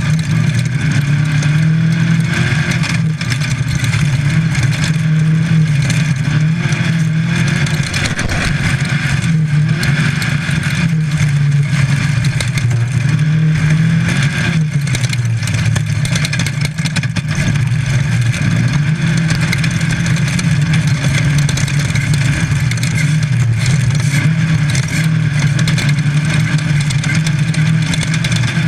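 Air-cooled VW engine of a Baja Bug off-road race car at full effort, heard from inside the car, its pitch rising and falling over and over as the revs climb and drop. A constant rattle and knocking from the car over rough ground runs underneath.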